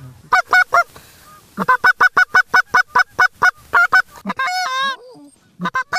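Goose call blown by a hunter: quick, evenly spaced clucks at about five a second, then one longer wavering note, then a few more short clucks near the end, made to draw circling geese in.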